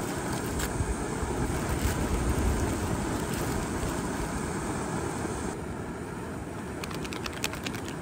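Steady outdoor rushing noise with a low rumble, with a quick run of sharp clicks near the end.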